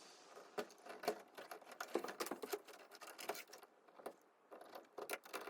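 Faint, irregular clicks and light taps of hand work at an electrical panel, with a short quiet gap near the end.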